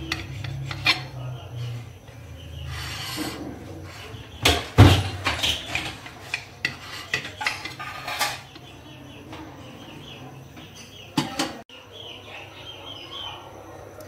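Kitchen knife cutting a sponge cake, its metal blade scraping and knocking against the ceramic plate beneath in a string of short scrapes and clicks. The loudest knock comes about five seconds in, and another burst of scraping comes near eleven seconds.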